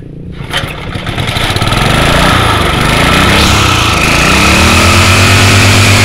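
Plate compactor's small air-cooled gasoline engine revving up from a low idle, its pitch sweeping down and up as the throttle is worked, then settling into a steady high-speed run about four and a half seconds in.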